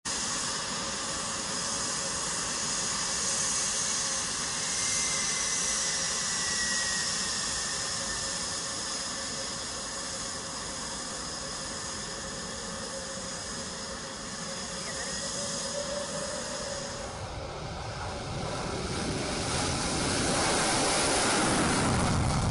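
The twin Pratt & Whitney F119 turbofans of an F-22 Raptor whining and hissing steadily at low power. About seventeen seconds in, the sound grows deeper and louder, with a falling sweep, as the jet goes to full afterburner for its takeoff run.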